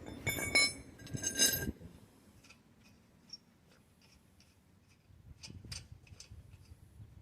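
Two sharp, ringing metal clinks close together, then a few faint light clicks and taps of metal parts being handled.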